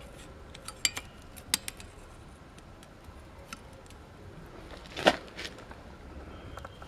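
Piston ring expander pliers clicking as their jaws are set and squeezed onto the rings of a MAN D2866 diesel piston: a few light metallic clicks, the loudest about five seconds in.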